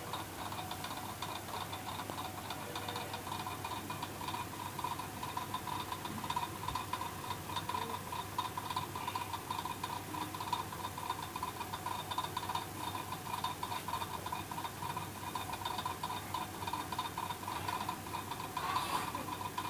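A steady whine with a low hum beneath it and a faint flickering ticking texture; no speech.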